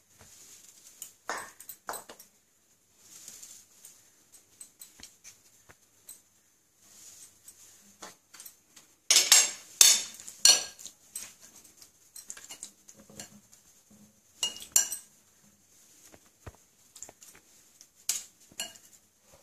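Steel spoons clinking against glass plates, as chicken pieces are scooped and turned in a dry flour-and-crumb coating. The clinks are scattered, with the loudest in a quick cluster about nine to ten and a half seconds in.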